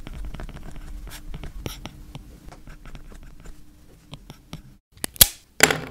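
Handwriting being done with a pen: quick scratches and small taps of the strokes over a low steady hum. Near the end the sound cuts out briefly, then come two loud bumps.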